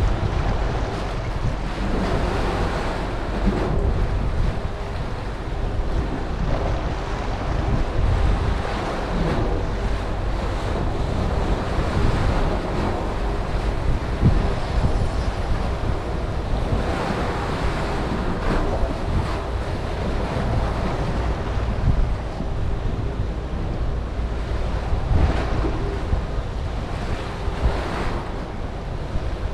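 Wind buffeting the microphone, a steady low rumble, over the wash of sea waves.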